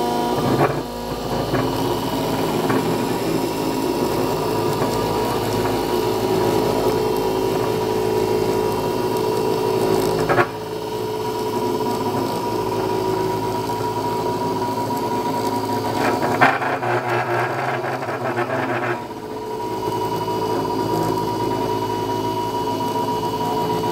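Small 4-axis CNC router running a finishing pass with a 2 mm ball-nose tool on a soft white block turned by the rotary axis. The spindle and axis motors make a steady hum with several steady whining tones. A rougher cutting noise comes in for a couple of seconds near the end.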